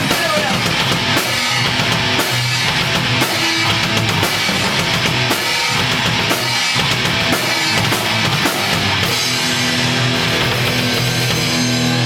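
Punk rock band playing: distorted electric guitars over a pounding drum kit. About three-quarters of the way through, the drum strikes drop away and a held guitar chord rings on.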